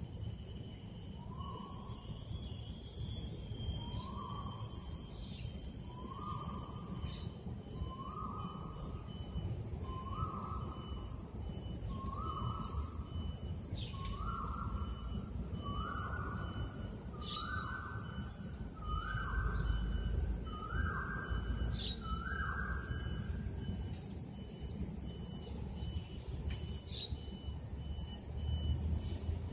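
Forest sounds: a series of about a dozen short whistled calls, one every couple of seconds, each a little higher and longer than the one before, over a steady pulsing higher chirp and scattered bird twitters, with a low rumble beneath.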